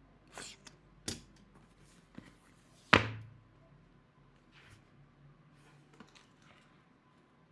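Handling the packaging during an unboxing: a scatter of short rustles and light knocks, with one sharp knock about three seconds in that is the loudest sound.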